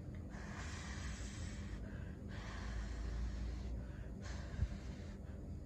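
A person breathing close to the microphone: three long breaths of hiss with short pauses between them, and one sharp click about four and a half seconds in.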